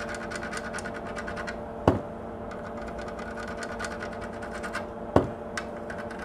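Soldering iron tip crackling and sizzling in gel flux as it is worked over the RAM chip's pads to level the solder, in clusters of fine rapid ticks. Two louder sharp knocks come about two seconds and five seconds in, over a steady low hum.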